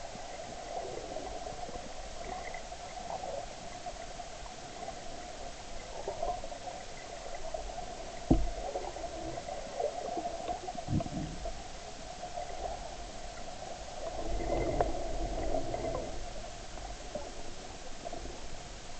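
Muffled underwater river ambience heard through an action camera's waterproof housing: a steady water hiss and hum, with two dull knocks about eight and eleven seconds in and a louder stretch of water movement around fourteen to sixteen seconds.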